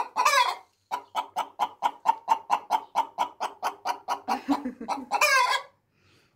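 Hens in a nest box clucking rapidly, about six clucks a second, broken by two louder squawks, one at the very start and another about five seconds in. A hen is protesting at another crowding her nest box: that one is not happy.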